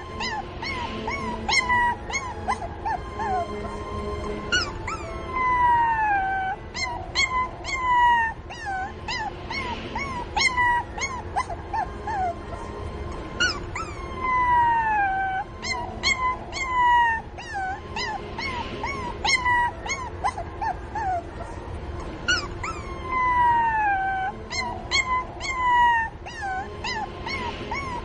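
Puppy crying for its mother: a rapid run of short, high-pitched yelps and whimpers, each falling in pitch, with a longer falling whine about every nine seconds.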